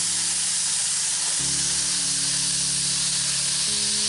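Ground beef sizzling steadily as it browns in a cast iron skillet. Under the sizzle, background music plays sustained low chords that change about a second and a half in and again near the end.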